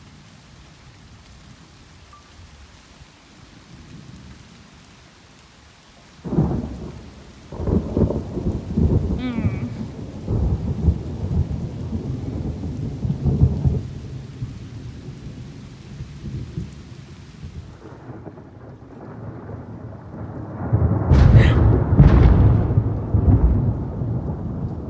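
Thunder in a rainstorm. Under a soft hiss of rain, a sharp thunderclap about six seconds in rolls into a long low rumble that slowly fades. A second, louder clap about twenty-one seconds in rumbles on.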